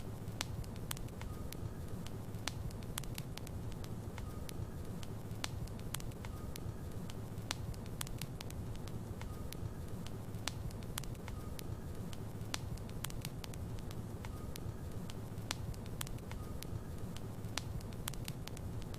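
Wood logs burning in a fireplace: frequent sharp crackles and pops at irregular intervals over a steady low rumble, with a faint short tone recurring every second or two.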